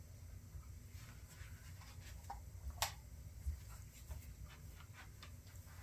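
Faint scattered clicks and light taps of small objects being handled, with one sharper click about three seconds in, over a low steady hum.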